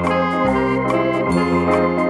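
Background music: sustained chords that change to new notes about every half second.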